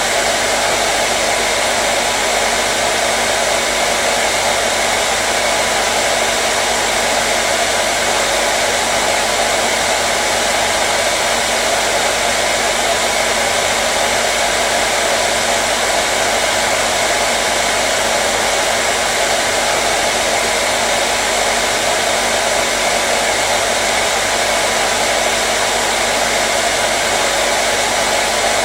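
Hair dryer running steadily on one setting: an even blowing rush with a faint motor hum, unchanging throughout.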